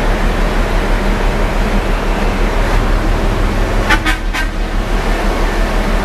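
Steady low rumble and wind noise on the microphone, with a brief sharp sound about four seconds in.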